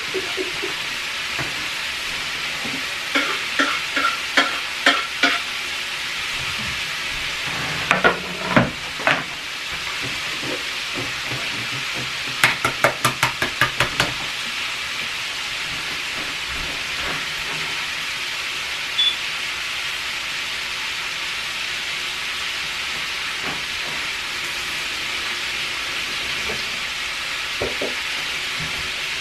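Chicken frying in a pan, a steady sizzle throughout. Three short runs of light clicks and knocks sound over it, the quickest a rapid run of about eight clicks about halfway through.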